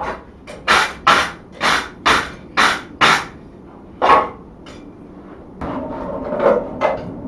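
Blacksmith's hammer striking steel at the anvil, seven sharp blows at about two a second. After the blows, a few seconds of handling noise with two lighter knocks near the end.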